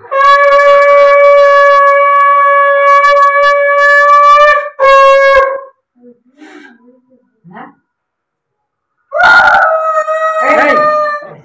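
Conch shell (shankha) blown three times: a long steady blast of about five seconds, a short second blast, and a slightly wavering blast of about two seconds near the end. The conch is sounded as an auspicious call during a blessing.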